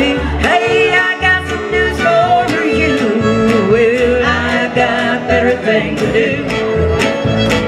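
Live country band playing with a fiddle over acoustic guitar, bass and a steady beat, in a break between sung lines.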